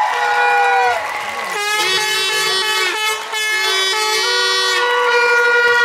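Handheld air horns blown by supporters in long, overlapping blasts at a few different steady pitches, acclaiming the team at the end of its routine.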